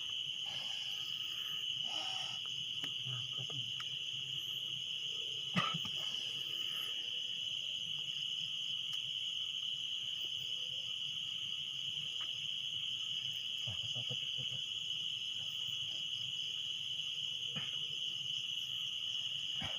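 Steady, unbroken high-pitched chorus of crickets, with a few faint rustles and one sharp click about five and a half seconds in.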